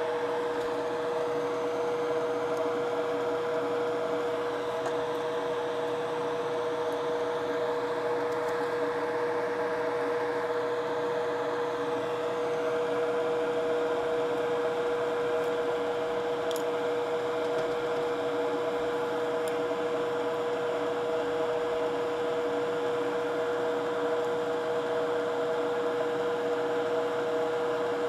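Steady motor hum and airy hiss of rework-bench equipment, a fan or pump running continuously with a constant mid-pitched tone, and a couple of faint ticks about two-thirds of the way through.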